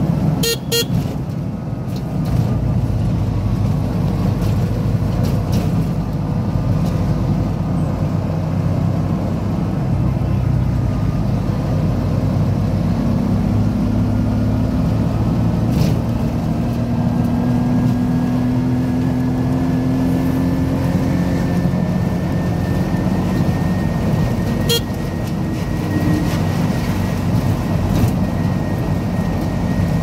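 Engine and road noise from inside a moving vehicle, steady throughout. A few brief sharp sounds cut in: two near the start, one about halfway, and one about 25 seconds in.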